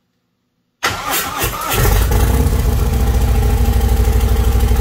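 Harley-Davidson Sport Glide's Milwaukee-Eight V-twin, fitted with a new DK Customs Outlaw 606 air cleaner, cranking and firing up about a second in, then settling into a loud, evenly pulsing idle.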